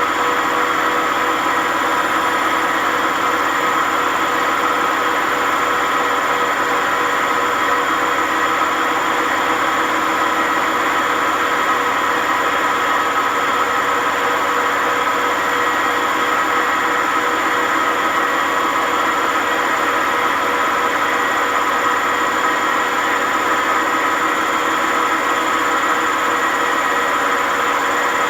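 WMA50 washing machine spinning at a steady speed without ballast, giving a loud, unchanging whine and rumble from its drum bearings: very bad bearing noise, the sign of badly worn bearings.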